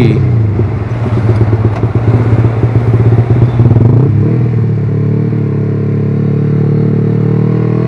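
Bored-up Yamaha R15 V3 single-cylinder engine running through an R9 GP racing exhaust. It pulls with the revs climbing over the first few seconds, then eases to a steadier cruise about four seconds in.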